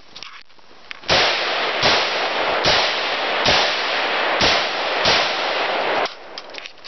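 AR-15 rifle firing six shots at a steady pace, a little under a second apart. Each shot is followed by a loud hissing wash that runs on into the next and cuts off suddenly after the last.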